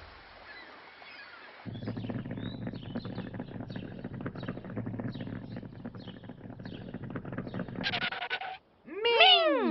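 Cartoon street sound effects: a vehicle engine running with faint birds chirping above it. Near the end comes a short pitched horn-like toot, then a loud voice-like call that rises and falls in pitch.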